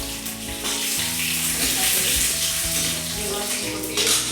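Garlic and dried red chillies frying in hot oil in a pan, with a steady sizzle, under background music.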